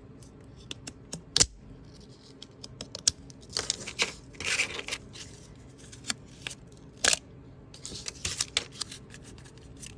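Thin 3D-printed plastic accordion-style support being squeezed and stretched by hand: crinkling, scraping rustles with sharp plastic clicks, the strongest about a second and a half in.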